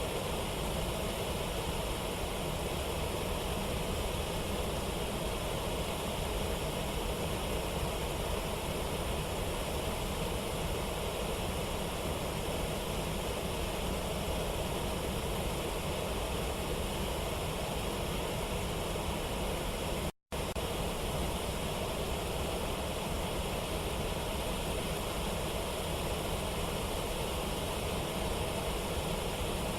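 Steady rush of falling water from a waterfall or rapids. It cuts out completely for a split second about twenty seconds in.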